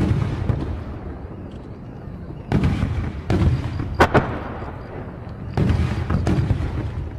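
Aerial fireworks shells bursting: about six deep booms over several seconds, each trailing off in a low rumble, with a sharp crack about four seconds in.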